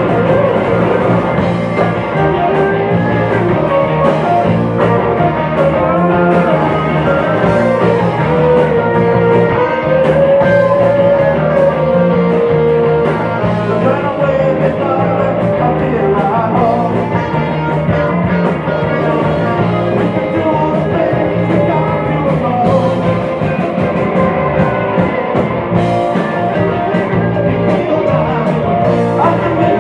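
Live indie rock band playing a song in a pub: electric guitar, bass and drums keeping a steady beat, with a lead vocal singing over them.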